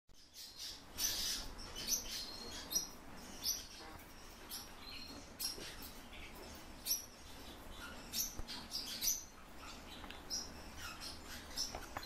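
Fieldfare giving short, sharp high-pitched calls, repeated at irregular intervals about once a second.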